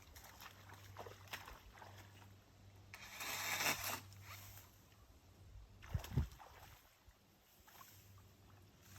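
Faint water sounds at a river's edge: a sloshing swish about three seconds in and a short low thump about six seconds in, over a faint low hum.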